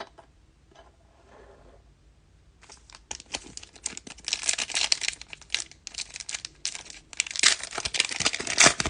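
A trading-card pack wrapper being torn open and crinkled: after a couple of quiet seconds, a run of dense crackling and tearing that swells twice.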